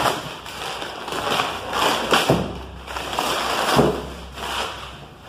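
Crumpled brown kraft packing paper rustling and crinkling as it is pulled out of a cardboard shipping box, in several irregular bursts.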